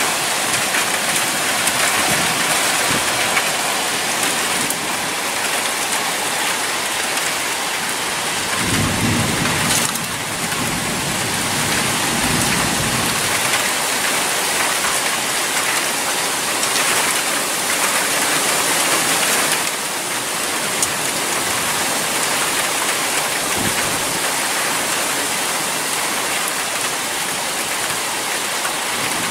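Heavy rain falling steadily during a thunderstorm, growing stronger. About a third of the way in, a roll of thunder rumbles low for several seconds. A shorter, fainter rumble comes near the end.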